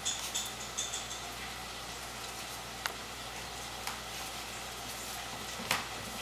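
A Shih Tzu puppy playing on a hardwood floor with a ball toy hanging from a chair on a ribbon: a few short high chirps in the first second, then three separate sharp clicks and taps, over a steady hiss.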